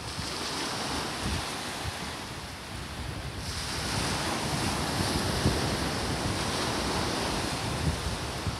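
Small sea waves breaking and foaming up the sand in a steady rush of surf, the rush swelling about three and a half seconds in as another wave breaks. Wind buffets the microphone underneath.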